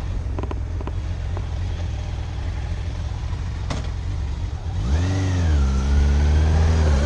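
Motorcycle engine idling with a steady low rumble, a single click about four seconds in, then the revs rise, dip and hold steady as the bike pulls away.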